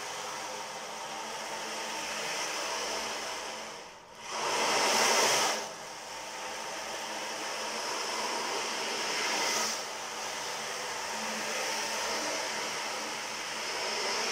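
Blue 32 cm ocean drum tilted slowly back and forth, the beads inside rolling across the head in a continuous surf-like wash. The wash nearly stops about four seconds in, then comes back as its loudest wave for a second or so, and swells again a few times after.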